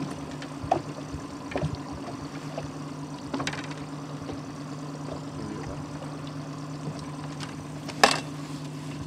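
Outboard motor running steadily at trolling speed, with a few sharp knocks over it, the loudest about eight seconds in.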